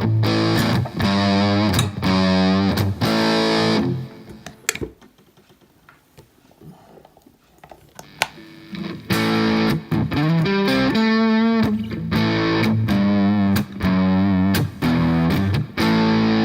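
Electric guitar played through a Boss Blues Driver BD-2 overdrive pedal with the gain at full: heavily distorted chords and bent, wavering notes. The playing stops for about four seconds partway through, then starts again.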